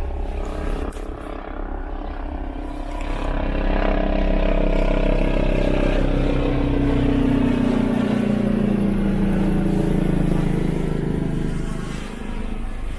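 An engine drone that grows louder about three seconds in, its pitch sliding slowly downward, then eases off near the end, over a steady low rumble.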